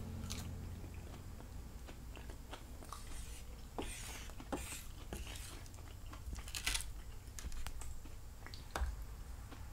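Chewing a mouthful of cooked vegetables, with scattered soft clicks and taps as a wooden fork picks food off a plate.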